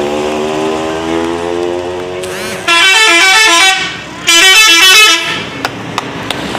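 Telolet bus horn playing two loud bursts, each about a second long, of its rapid warbling multi-note tune. Before them a lower pitched drone slowly falls in pitch.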